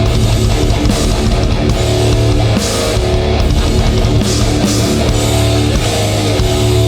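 Hardcore band playing live: loud distorted electric guitars and bass holding heavy low notes, with drums and crash cymbals hitting about once a second.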